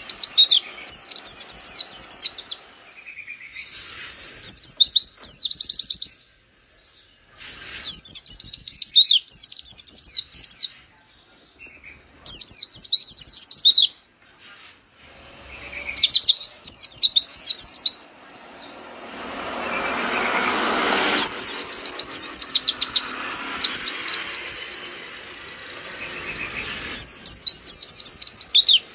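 A caged white-eye (pleci) sings its fast, rapid-fire 'nembak' song in short, high-pitched twittering bursts, each about a second long and repeated every couple of seconds. A rushing background noise swells for a few seconds past the middle.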